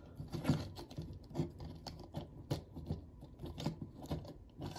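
Plastic action figure (Transformers Legacy United Leader Class Sandstorm) being handled during transformation: a dozen or so irregular light clicks and knocks as its plastic parts are moved and snapped into place.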